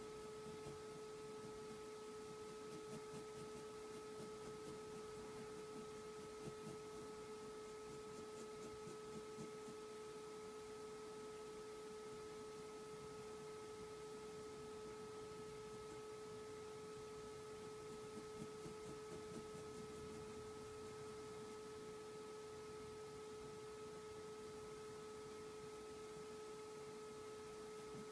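A steady electrical hum with a few higher overtones throughout. Over it come faint, quick scratches of a graphite pencil stroking paper, in short runs a few seconds in and again later.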